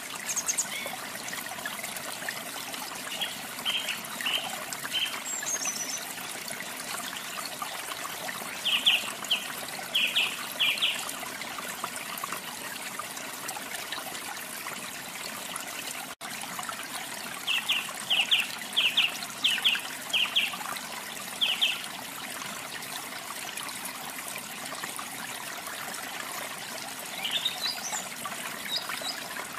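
Steady trickle of running water, with songbirds chirping over it in short clusters of quick high notes, a few rising in pitch. The sound cuts out for an instant about halfway through.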